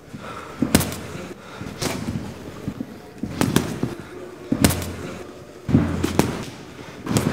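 Boxing gloves landing punches: sharp smacks with a low thud under each, a single blow or a quick one-two about every second or so.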